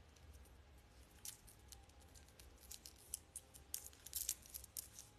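Faint clicks and light rustling of a necklace's clasp and beads being handled and fastened at the neck. The clicks grow busier over the last couple of seconds.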